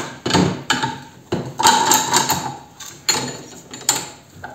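Metal tools clanking and rattling: a wrench on a long steel extension bar and an angle grinder knocking against a steel bench vise as they are handled. About eight sharp knocks, several with a brief metallic ring.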